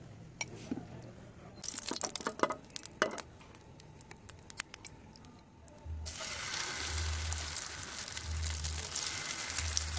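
A spoon clicking against a glass bowl, then, about six seconds in, hot oil starts sizzling all at once as a mixture of shredded chicken and beaten egg goes into the non-stick frying pan, and keeps sizzling steadily.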